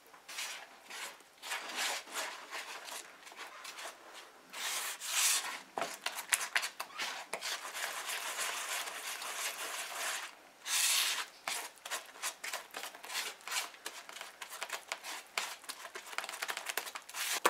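Silicone spatula stirring and scraping dry red velvet cake mix into eggs, oil and water in a mixing bowl: continuous rough scraping and swishing, with louder strokes about five and eleven seconds in.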